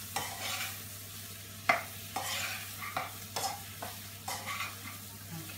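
Chopped vegetables sizzling in a frying pan as they are fried for a curry, with a spatula stirring them and scraping and tapping against the pan in an irregular string of short strokes.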